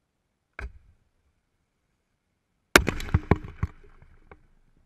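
A firework exploding in the hands of a demonstration mannequin. A short pop comes about half a second in, then a loud blast nearly three seconds in with a rapid string of smaller bangs after it, and a last bang near the end.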